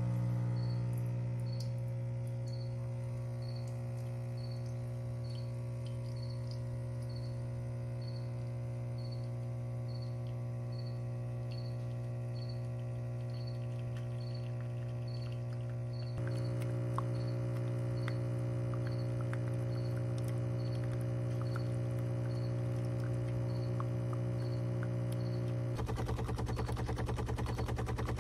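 Espresso machine running with a steady electric hum and a faint regular ticking about twice a second. It steps louder partway through, then changes to a rapid buzzing rattle near the end, like a vibration pump or grinder starting.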